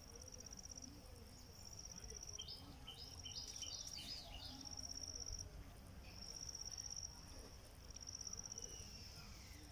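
Faint, high-pitched insect trilling in repeated pulsing phrases about a second long with short gaps between them. A bird gives a quick series of short chirps about two and a half to four seconds in.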